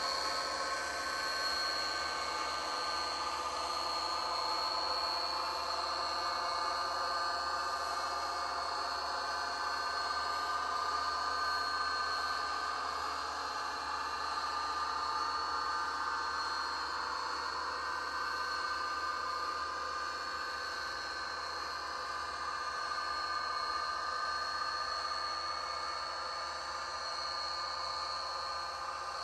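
Model train of Rapido Amtrak F40PH locomotives and passenger cars running on the track: a steady mechanical whirring hum with a few constant high whining tones.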